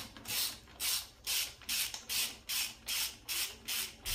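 Ratchet wrench clicking in quick back-and-forth strokes, about two and a half a second, as it snugs down bolts on a Farmall 450 engine's rocker arm assembly.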